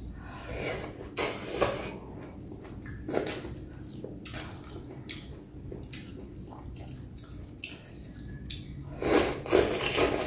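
Mouth sounds of a person eating noodle soup: wet chewing and lip smacks as scattered soft clicks, then near the end a louder, longer slurp of noodles.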